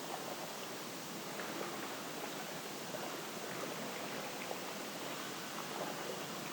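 Steady outdoor ambience: an even rushing hiss with scattered faint small ticks.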